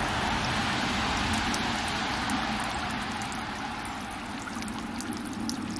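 Running water trickling in a steady rush, easing off slightly after the middle.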